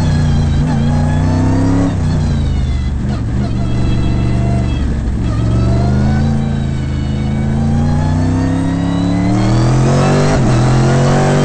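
Racing stock car's V8 engine heard from inside the cockpit at race pace. The revs climb and fall with gear changes and braking, dropping sharply a couple of times early on, then climbing steadily through the second half before another drop near the end.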